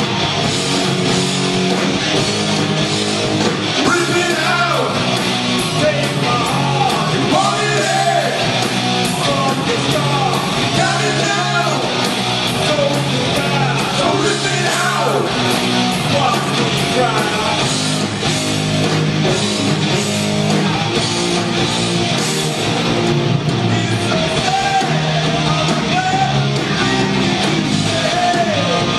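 Live hard rock band playing loudly: electric guitars, bass and drums, with a lead singer's voice over them.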